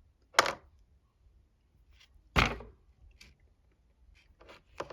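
Small plastic Littlest Pet Shop figures knocked and set down on a desk: two sharp knocks about two seconds apart, then a few lighter taps near the end.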